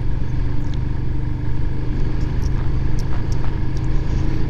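Royal Enfield Himalayan single-cylinder motorcycle engine running at a steady, slow road speed, an even engine note over a low rumble of wind and road.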